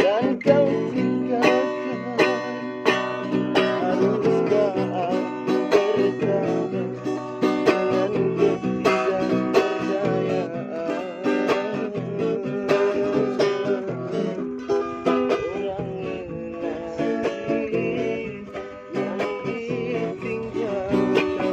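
Music: an instrumental passage on plucked strings, with no sung words.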